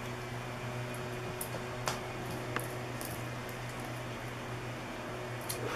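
A few light clicks and taps from ferrets playing with a mini Easter egg, the sharpest one near the end, over a steady low hum.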